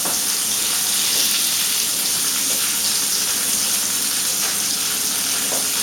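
Seasoned chicken pieces frying in oil in a very hot pan: a steady sizzling hiss with small crackles of spitting fat.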